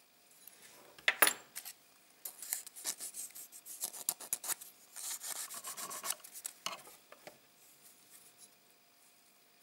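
Sandpaper rubbing over a plastic model-kit part in quick back-and-forth strokes for about four seconds, after one sharp scrape about a second in.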